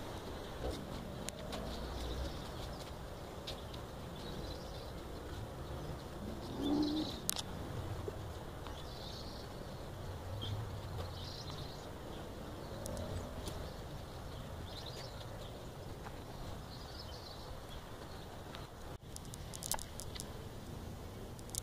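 Birds chirping in woodland, short high calls every second or two over a low steady background, with one louder low sound about seven seconds in and a few sharp clicks near the end.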